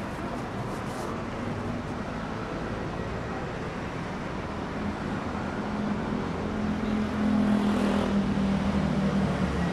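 City street traffic noise, with a car engine's hum growing louder in the second half.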